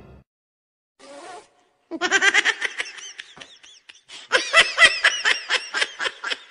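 High-pitched laughter in quick repeated ha-ha pulses, starting about two seconds in and getting louder and faster about four seconds in.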